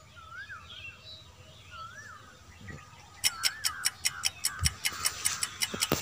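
Countdown-timer ticking sound effect: fast, even clock-like ticks, a little over four a second, starting about three seconds in and marking the seconds given to answer the quiz question.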